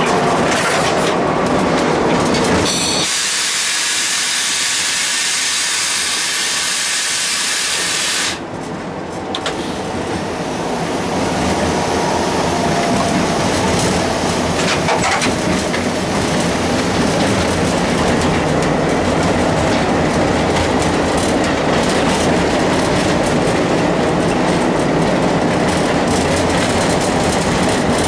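Cab noise of an Alco WDM-3A diesel locomotive on the move: the engine running and the wheels clattering over rail joints. About three seconds in, a loud hiss starts, holds for about five seconds and cuts off suddenly, and then the running noise comes back.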